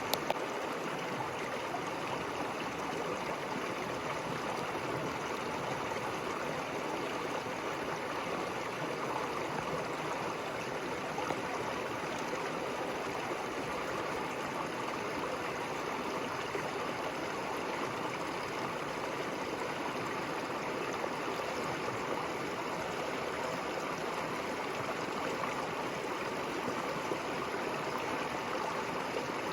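River water running steadily, an even, unbroken flowing sound, with two brief clicks right at the start.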